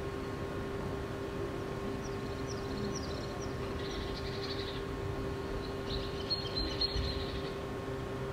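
Birds chirping in short high bursts, a couple of seconds in, around four seconds, and again between six and seven seconds, over a steady hum.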